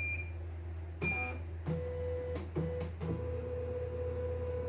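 CNY E900 computerized embroidery machine being test-run after repair: a short beep from its control panel about a second in, then the embroidery unit's motors whine steadily as the hoop carriage moves, with a few brief pauses. A constant low hum runs underneath.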